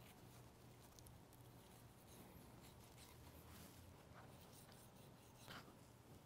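Near silence: a faint low room hum with a few soft scrapes and taps as a boning knife trims fat and silver skin from a raw pork shoulder. The clearest of these comes about five and a half seconds in.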